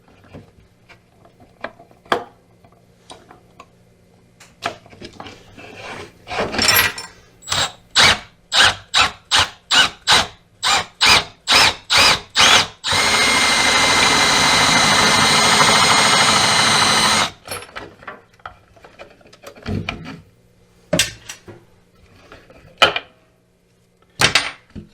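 Handheld power drill with a step drill bit, triggered in a string of short bursts about two a second, then run steadily for about four seconds with a high whine, followed by a few knocks and clicks as the work is handled.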